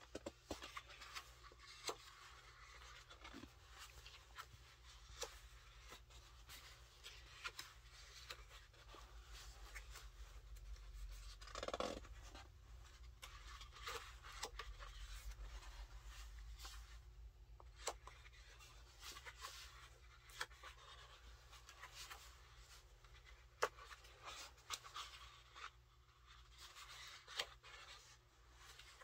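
Thick glossy pages of a large hardcover photobook being turned by hand: faint paper rustling and sliding, with light ticks and taps as pages flip over and settle.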